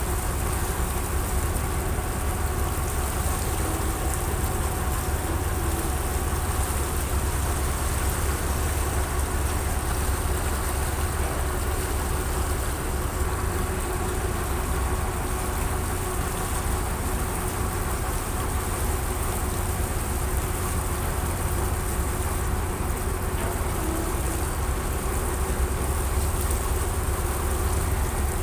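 A boat's engine running steadily, heard on board: a constant low rumble with a faint steady hum above it.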